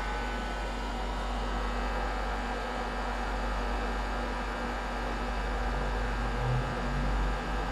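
BGA rework station running its reflow heating cycle, its top and bottom hot-air heaters and fans giving a steady blowing hiss over a low mains hum.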